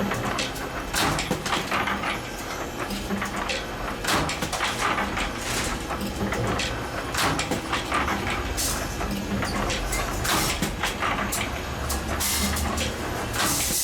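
Spring-making machinery running, with irregular metallic clicks and rattles over an on-and-off low hum.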